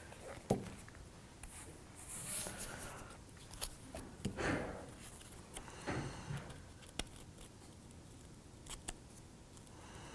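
Faint handling noises from small laser-cut kit parts being fitted: scattered light clicks and taps, with soft rustling in between.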